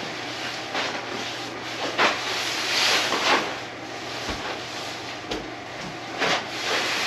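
Nylon tent rain fly rustling and swishing as it is pulled and draped over a dome tent's frame, in several separate swishes over a steady rustle.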